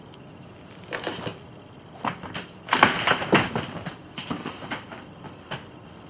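An irregular run of rustles and light knocks on a sheet-lined plastic kiddie pool holding baby rabbits, busiest and loudest in the middle and then thinning out.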